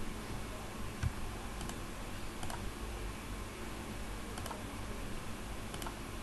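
About five short, sharp computer mouse clicks spread over several seconds, over a steady low microphone hum and hiss.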